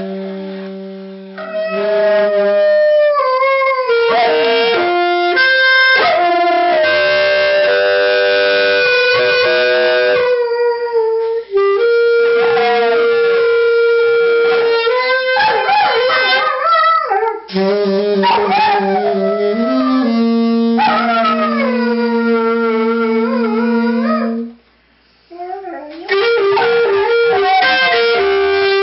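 A dog howling and whimpering along with a saxophone: the saxophone holds long steady notes while the dog's howls waver and glide in pitch above and around them. Both stop briefly near the end, then start again.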